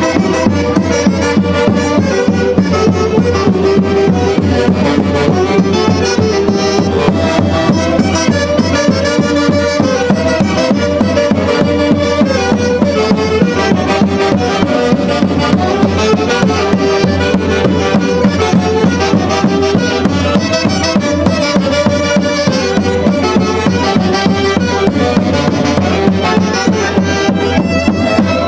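Andean folk orchestra from Huancayo playing a lively traditional tune at a steady, even beat, with pitched melody instruments carrying the tune throughout.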